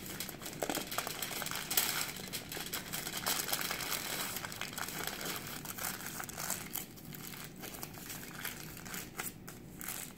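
Aluminium foil crinkling in the hands as it is folded and pressed tightly around a piece of food, in irregular crackles.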